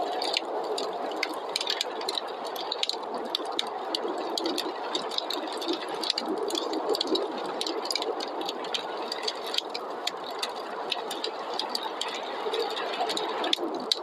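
Wood fire crackling in a fireplace, with many small sharp pops and snaps, over a steady rushing snowstorm wind.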